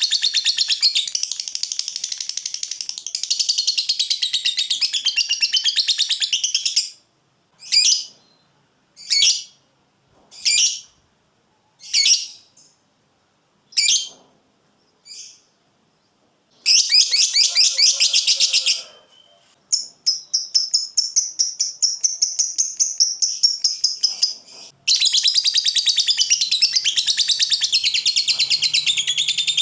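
Lovebird giving its long 'ngekek' chattering song: a rapid, high, continuous chatter that breaks off about a quarter of the way in into half a dozen short separate calls, then comes back in bursts and a steadier trill, and runs on unbroken again near the end. This long-running chatter is the prized song of a fighter lovebird.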